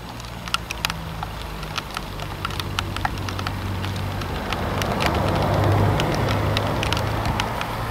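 Low, steady rumble of a distant train on the line, swelling a little past the middle and easing near the end, with scattered light ticks throughout.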